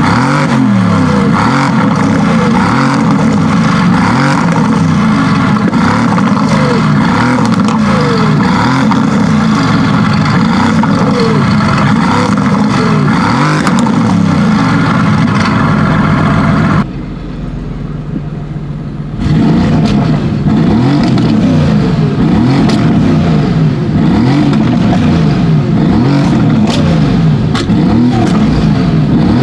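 Engine of a tuned Mercedes-AMG GT S, a twin-turbo V8 with upgraded turbos and downpipes, revving repeatedly, its note rising and falling again and again. A little past halfway it drops for about two seconds to a quieter low running before the revving resumes.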